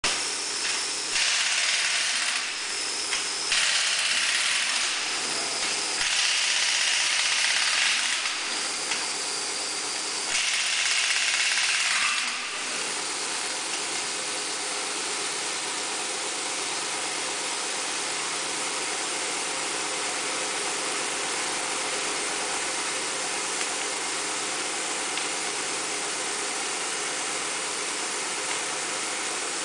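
Pneumatic impact wrench run in four bursts of about two seconds each over the first twelve seconds, each with a loud hiss of air, over a steady machine hum that then goes on alone.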